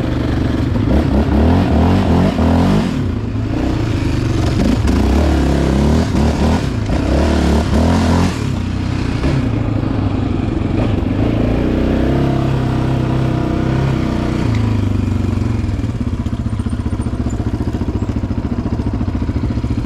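Yamaha Raptor 700R ATV's single-cylinder engine revving hard, with the throttle opening and closing, as it climbs a short hill for about eight seconds. It then runs more evenly at lower revs.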